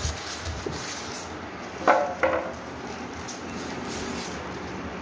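Cardboard box and styrofoam packing being handled as the fan motor is lifted out, with two short, sharp squeaky scrapes about two seconds in.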